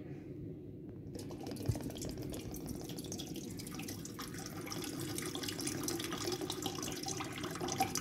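Water pouring from a plastic bottle into an empty stainless-steel Morphy Richards Flamio electric kettle, splashing onto the metal inside and growing slowly louder as it fills. A light knock sounds a little under two seconds in.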